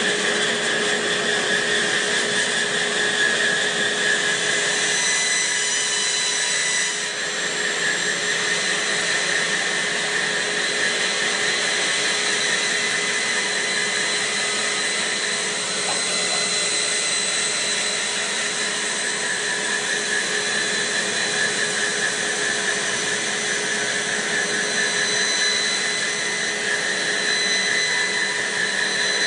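Bandsaw running steadily, its blade ripping lengthwise through a thick bark-covered log section held against the fence.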